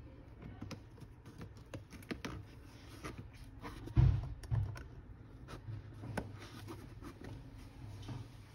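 Light clicks and taps of a phone and steel tweezers being handled on a rubber bench mat, with one louder dull thump about four seconds in.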